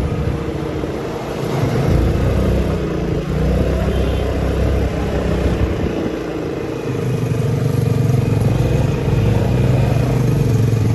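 Motorcycle engine running while riding off, picking up revs about two seconds in and again near seven seconds.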